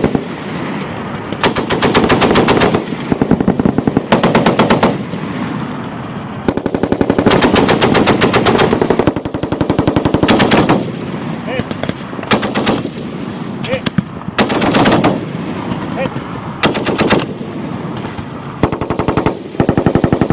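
Browning M2 .50-calibre heavy machine gun firing repeated short bursts of rapid shots, each burst about one to two seconds long, with brief pauses between them.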